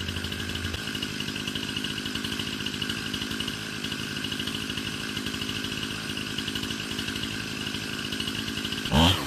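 Two-stroke chainsaw idling with a steady, fast pulse, then revved up sharply near the end.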